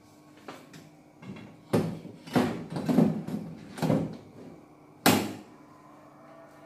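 Wall-hung kitchen cabinet knocking and scraping against the wall as it is lifted and hooked onto its wall-mounted hanging rail: several bumps, with the sharpest and loudest knock about five seconds in.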